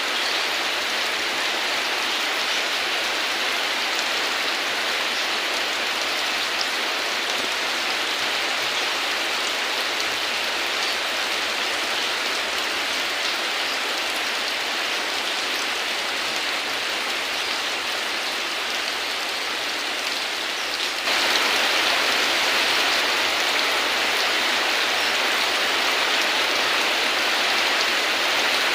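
Heavy rain falling steadily: a dense, even hiss of downpour. About 21 s in it jumps abruptly to a louder level.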